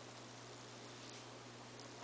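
Quiet room tone: a steady hiss with a low hum, and a couple of faint ticks, one about a second in and one near the end.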